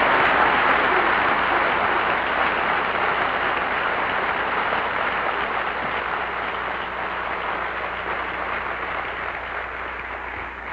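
Audience applauding, a steady patter of many hands clapping that slowly fades toward the end.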